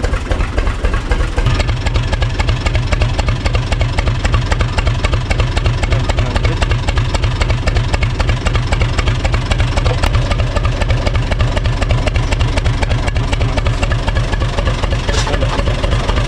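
UTB U445 tractor's four-cylinder diesel engine idling steadily with an even low chugging, shortly after a cold start.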